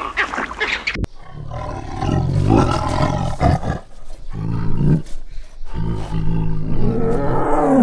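A macaque calling briefly, then, after about a second, tigers growling and roaring: about four deep growls with short gaps between them, the last one sliding down in pitch near the end.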